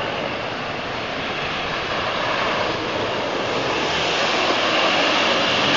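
Off-road 4x4's engine running hard at high revs while driving through mud, getting steadily louder.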